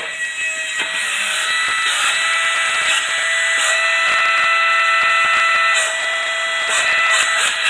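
Wall-climbing RC car's suction fan motor running with a steady high whine over a rushing hiss: the fan pulls the vacuum that holds the car against the wall.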